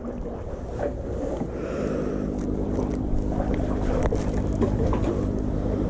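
A boat engine drones steadily, its low hum setting in about two seconds in over a low wind rumble, with a few light knocks from handling.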